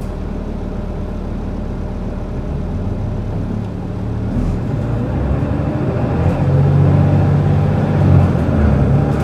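Gillig bus's Cummins L9 diesel engine idling, heard from inside the cabin, then speeding up about four seconds in as the bus pulls away, the engine note climbing and growing louder.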